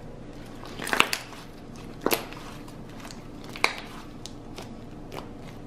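Red clay slime being stretched and folded by hand, giving off sharp pops. Three loud ones come about a second apart and a smaller one near the end, with fainter crackles between them.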